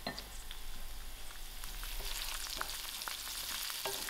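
Hot oil sizzling in a stainless steel pan of soft onions with freshly added curry leaves and thyme. The hiss grows louder about two seconds in, with a few light taps and scrapes of a slotted spoon stirring.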